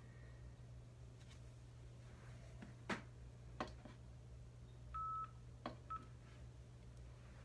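Quiet room with a steady low hum, a few faint clicks, and two short electronic beeps about five and six seconds in, the first lasting about a third of a second.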